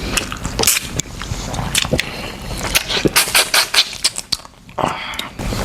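Eating sounds of people eating saucy seafood by hand: a run of short, sharp clicks and smacks, quieter briefly about four seconds in.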